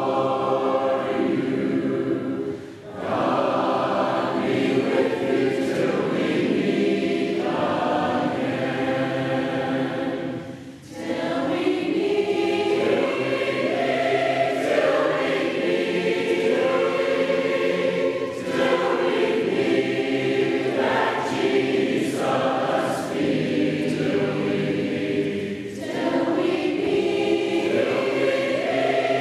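A choir singing a hymn in long, held phrases, with short breaks between phrases about 3 and 11 seconds in.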